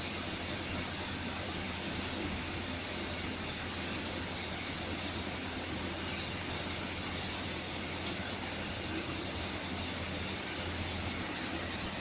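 Machinery running steadily: an even mechanical hiss over a low, constant hum, with no distinct strokes or clicks.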